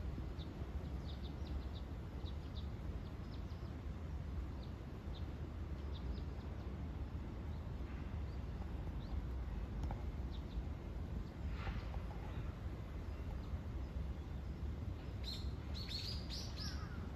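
Small birds chirping on and off in short, high notes, with a quicker run of calls near the end, over a steady low background rumble.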